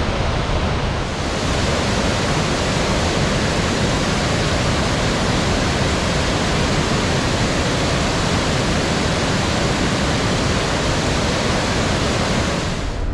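Cummins Falls waterfall: a steady roar of falling water close to the microphone. It stops suddenly at the end.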